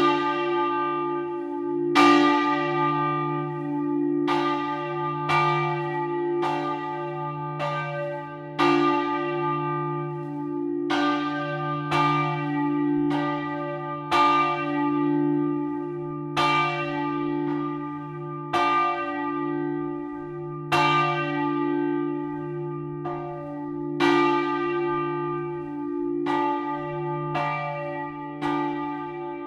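A large bronze church bell swinging in full, Italian style, its clapper striking about once a second. Each strike rings on with a long decaying tone over a steady low hum.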